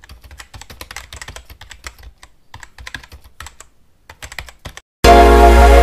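Keyboard typing sound effect: quick irregular runs of key clicks with short pauses, matching text being typed out. About five seconds in, loud music starts suddenly.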